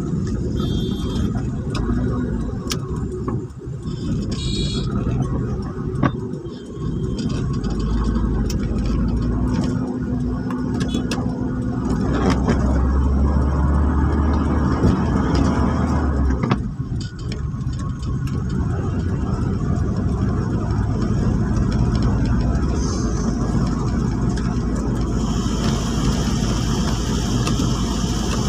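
Car driving on a wet road, heard from inside the cabin: engine and tyre noise, with a hiss coming in near the end.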